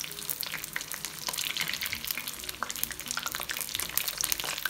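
Cheese samosas deep-frying in oil, a dense, steady crackling sizzle of many small pops.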